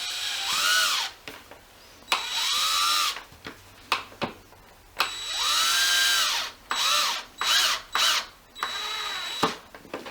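Power drill driving a screw into a pre-drilled wooden dowel, run in a series of trigger bursts, the motor's pitch rising and falling in each. The first bursts last a second or more; near the end come several short quick pulses as the screw is driven home.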